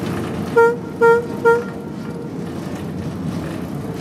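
A ship's horn sounds three short, evenly spaced blasts about half a second apart, over a steady low rumble. Three short blasts is the harbour signal that a vessel is operating astern, that is, backing.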